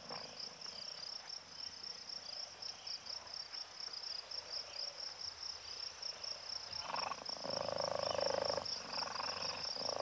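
Insects chirring in a steady pulsing trill, with a chorus of frogs croaking in from about seven seconds in, briefly breaking off and starting again near the end.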